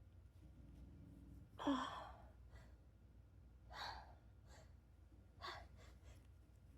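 A woman's breathing during a sneezing fit: a sighing, gasping breath about two seconds in, then two fainter short breaths, one near the middle and one toward the end.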